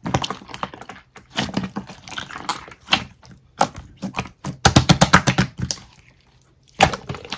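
Slime being squished and pressed by hand, making a string of sticky clicks and smacks. A quick run of clicks comes about five seconds in, and there is a short pause just before the end.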